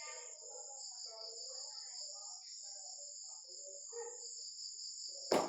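Crickets chirring steadily in the background, with faint murmured voices. Near the end comes a single sharp, loud knock.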